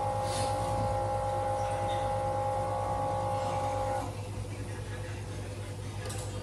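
A steady electrical hum from a running appliance, a low mains hum under higher whining tones. The higher tones cut off suddenly about four seconds in, leaving only the low hum.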